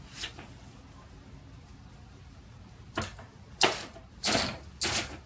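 Mechanism of a 1919 Hammond Multiplex Portable typewriter clacking as it is worked by hand: a click at the start, a quiet pause, then from about three seconds in a run of sharp clacks, roughly one every 0.6 s.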